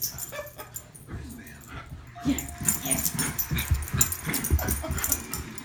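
A bullmastiff puppy and a Jack Russell terrier playing: short whimpers and yips over scuffling and clicks, busier from about two seconds in.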